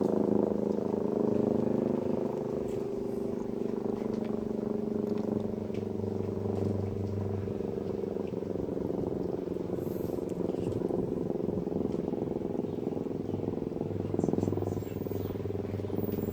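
Electromechanical civil-defence siren sounding a steady, droning chord of several held tones during a test of the public warning signal.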